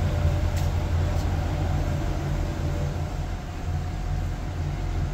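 2021 Chevy Suburban's 5.3-litre V8 idling steadily with all eight cylinders firing, its cylinder 2 misfire repaired.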